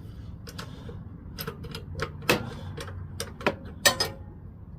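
A ratchet and 7/16 socket handled against metal: scattered sharp clicks and clinks, irregular and about a second apart.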